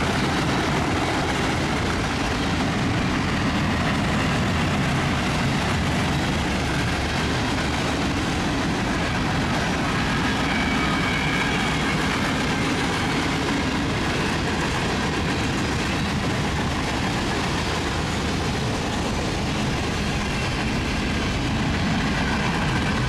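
Freight train cars, tank cars and boxcars, rolling past close by: a steady, unbroken noise of steel wheels on rail.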